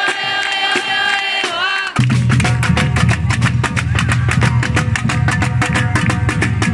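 Live band music: a long held vocal note, then about two seconds in the full band comes in loud, with fast drumming, bass and guitar.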